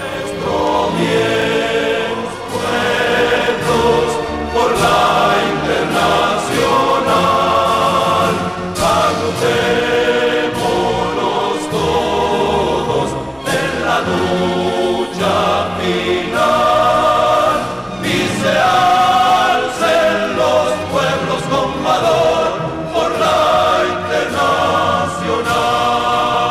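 Music with several voices singing sustained, wavering notes, starting abruptly at the beginning.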